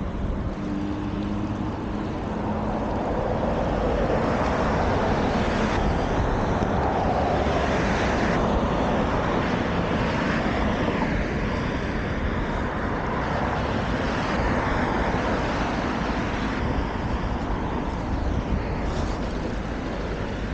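Rushing wind and road noise from riding a bicycle, wind buffeting the camera microphone; it grows louder a few seconds in and eases somewhat near the end.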